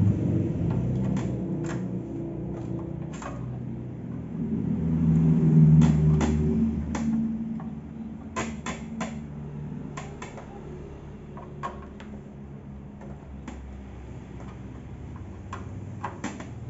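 Sharp plastic clicks and knocks from belt sander parts being handled and fitted together, scattered irregularly, over a low wavering hum that swells twice.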